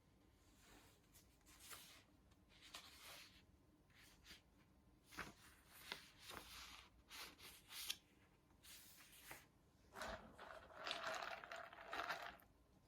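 Faint handling noises in a small room: a series of short rustles and scrapes, then a longer, denser rustle over the last three seconds.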